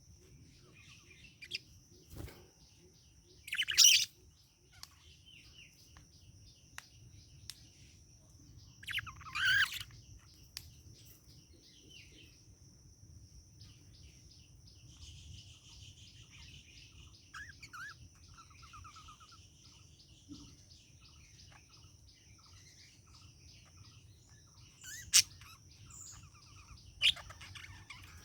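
Pet budgerigar chirping and warbling softly, with a few short, loud, sharp calls: one about four seconds in, one near ten seconds, and two near the end.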